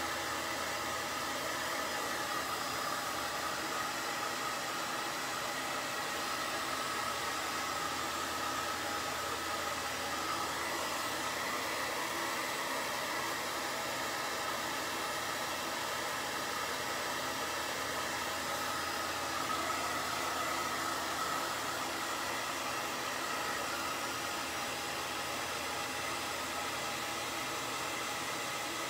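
Handheld hot-air dryer blowing steadily to dry fresh paint on a wooden cutout: an even rushing hiss with a faint motor whine underneath.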